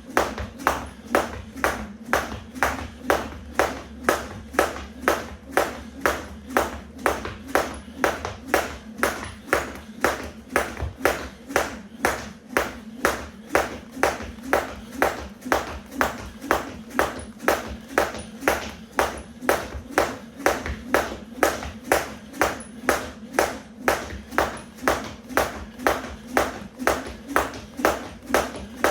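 A 1 lb weighted skipping rope hitting the floor in a steady rhythm, about two slaps a second, as someone skips continuously.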